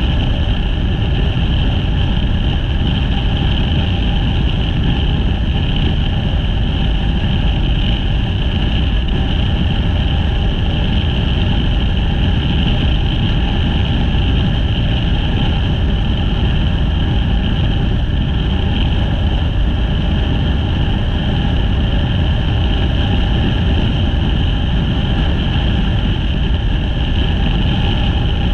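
Motorcycle engine running at a steady cruise, under heavy wind and road noise. The pitch holds steady throughout.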